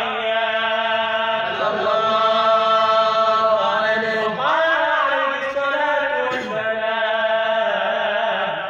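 A man chanting Arabic devotional verse solo into a microphone, holding long, unbroken notes that wind slowly up and down in ornamented turns.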